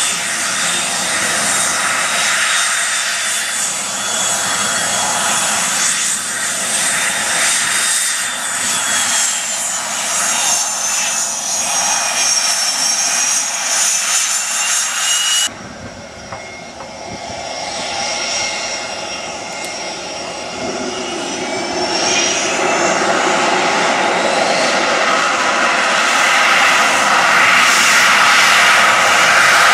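CF-18 Hornet's twin F404 jet engines running with a high turbine whine that wavers in pitch as the jet taxis. After an abrupt cut the whine returns and grows louder toward the end as the jet rolls down the runway for takeoff.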